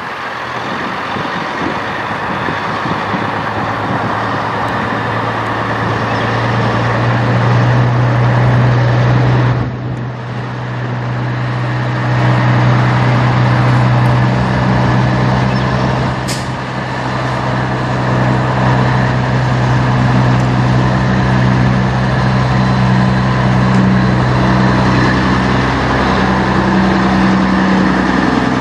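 Peterbilt 389 long-hood semi truck's diesel engine running as the truck pulls in at low speed, a steady low drone that grows stronger about eight seconds in. A brief high-pitched hiss comes about sixteen seconds in.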